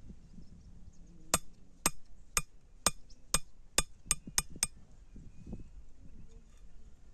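Blacksmith's hammer striking iron on an anvil: about nine sharp, ringing blows, the last few coming faster, then the hammering stops.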